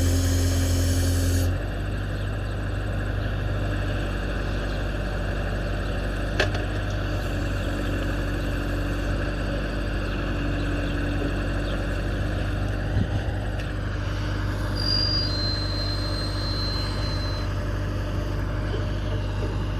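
Bobcat 773 skid steer's turbo diesel engine running steadily, louder with a hiss for the first second and a half, with a sharp click about six seconds in and a short knock around thirteen seconds.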